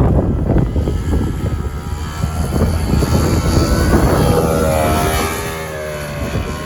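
Vintage two-stroke snowmobile engine running under throttle. Its note rises and then falls a few seconds in.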